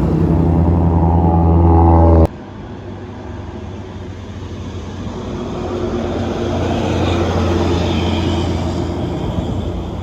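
Bus diesel engine labouring up an incline, a steady low drone growing louder, cut off abruptly about two seconds in. Then another bus approaches and passes, its engine and tyre noise swelling and fading.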